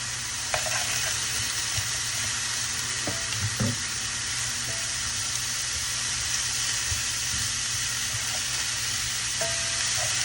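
Frozen broccoli, onions and bell peppers sizzling steadily as they fry in a pan, with a few faint knocks.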